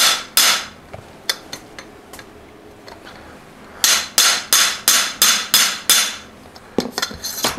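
Crown race setting tool struck repeatedly against a bicycle fork's steerer tube, driving the crown race down onto the fork crown. The metal-on-metal strikes ring: two at the start, a few light taps, then a run of about seven at roughly three a second in the middle, and a couple of lighter strikes near the end.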